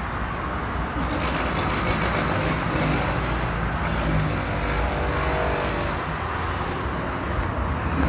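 Car engine running and tyre noise as a small sedan moves slowly past close by, over a steady low traffic rumble.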